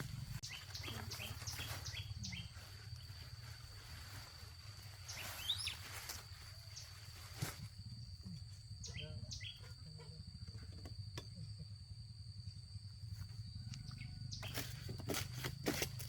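Rural field ambience: a steady high insect drone with scattered short bird chirps, and sharp clicks and knocks now and then, several in a row near the end.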